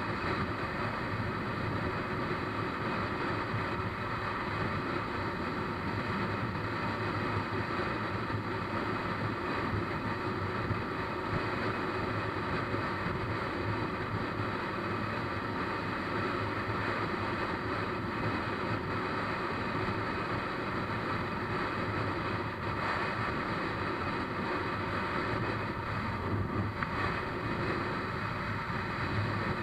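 Steady wind noise buffeting the camera's microphone on a moving motorcycle at cruising speed, with the motorcycle's engine running evenly underneath.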